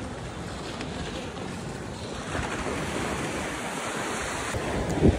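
Sea waves washing onto a sandy beach, with wind buffeting the phone's microphone; the wash swells about two seconds in. A sharp thump near the end.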